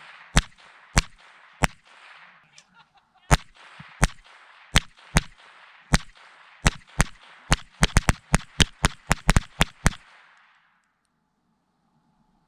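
Rapid semi-automatic gunfire from a small-calibre rifle, about two dozen shots: evenly paced at first, then quick strings of about four shots a second from around 7.5 s, stopping after about ten seconds. The rounds are striking a surplus Kevlar helmet set up as a target.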